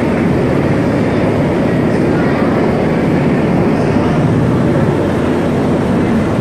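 U.S. Coast Guard rescue helicopter hovering low overhead, its rotors and engines making a loud, steady, rapidly pulsing noise.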